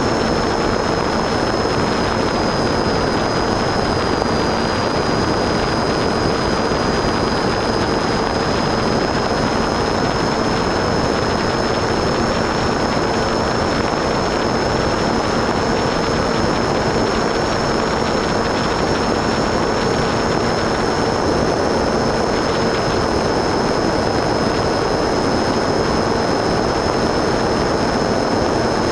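Steady motor and propeller drone with wind rush, heard from the onboard camera of an FPV radio-controlled model aircraft in flight, with a thin high whine held over it.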